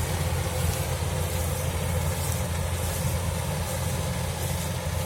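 Kubota 105X combine harvester's engine running steadily under load, a constant low drone.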